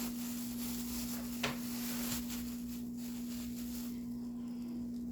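A steady low hum at one pitch, with a single faint click about one and a half seconds in.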